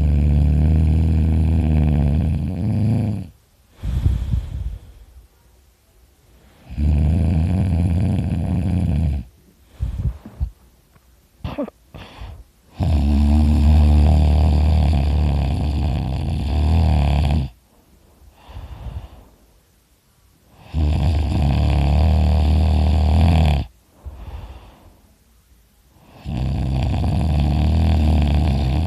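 A person snoring loudly in their sleep, mouth open: five long snores of about three to four seconds each, coming every six to seven seconds, with short quieter breaths and snorts in the gaps between them.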